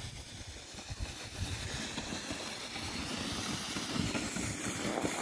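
Rumbling, rushing slide of a sled running down a snowy hill, growing steadily louder.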